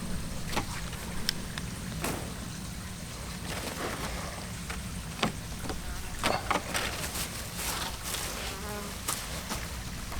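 An insect, such as a fly, buzzing close by, with scattered short knocks and scrapes throughout.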